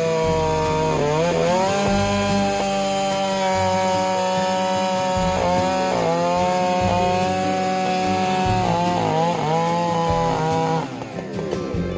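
Chainsaw at high revs cutting through wood, its pitch sagging under load and recovering several times. The saw's sound drops away about a second before the end.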